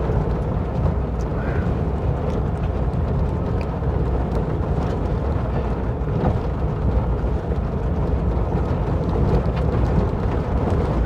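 1958 Volkswagen Bus's air-cooled flat-four engine running steadily on a rough dirt trail, with the body and load giving off scattered light rattles and clicks over the bumps.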